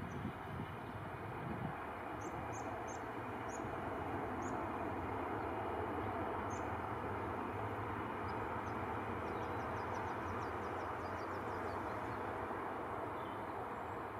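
Airbus A320-214's CFM56 turbofan engines running at low power on the ground, a steady rumble and hiss that grows a little a few seconds in. Small birds chirp a few times, then give a quick trill in the middle.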